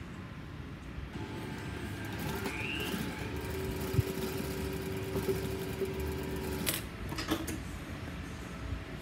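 Juki industrial sewing machine running for about three seconds in the middle, stitching a short seam across a knit T-shirt neckband strip, with a steady hum. A couple of sharp clicks follow as it stops.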